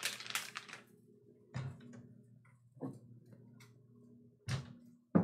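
Bowls being taken out of a kitchen cabinet and handled: about five separate knocks and clinks spread a second or so apart, over a steady low hum from the microwave running.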